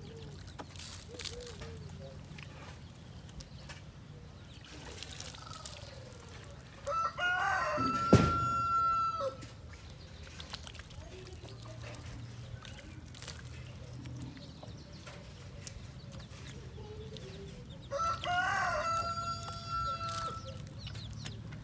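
A rooster crows twice, about eleven seconds apart, each crow rising into a long held note before it stops. A sharp click lands in the middle of the first crow.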